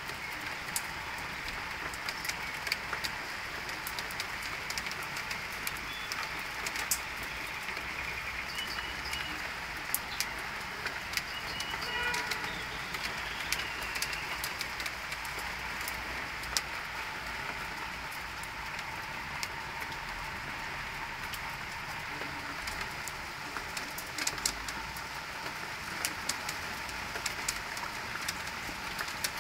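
Steady rainfall hissing, with many sharp drops ticking on hard surfaces. A bird calls briefly a few times near the middle.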